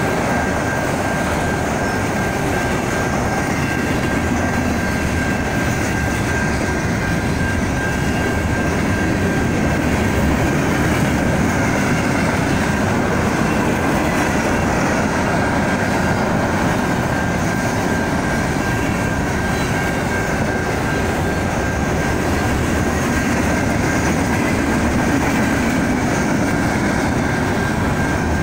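Freight train's cars rolling steadily past, a continuous rumble of wheels on rail with a thin, steady high tone running through it.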